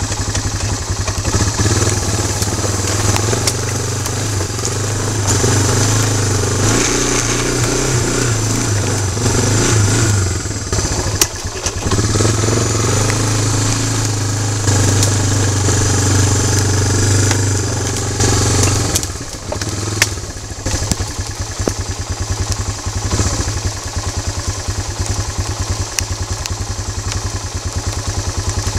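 ATV engine running under load as the quad drives through brush, pulling hard with a brief easing off about halfway, then dropping back to a lower, lighter run for the last third.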